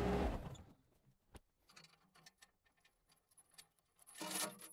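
A steady engine hum stops about half a second in, leaving near silence with a few faint clicks. About four seconds in comes a short spell of rustle and metallic clicking.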